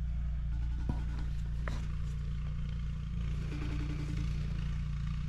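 A vehicle running with a steady low hum, with a couple of faint clicks about one and two seconds in.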